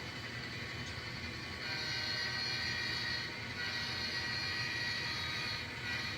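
Model train locomotive running along the track, a steady tonal hum that grows louder about a second and a half in and eases off near the end.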